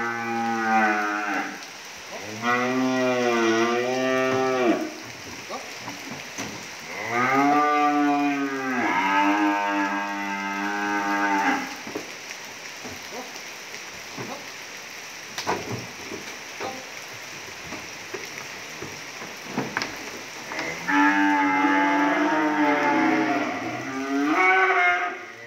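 Cattle mooing: about six long, drawn-out calls that come in two groups, with a quieter gap of a few scattered knocks in the middle.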